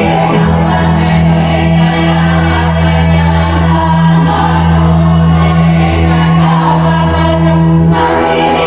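Music: choral voices singing long held notes over a deep, steady drone.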